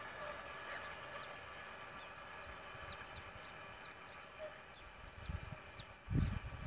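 Small birds chirping: short, high notes that slide downward, several a second, over a faint steady hum. Low buffeting on the microphone, loudest about six seconds in.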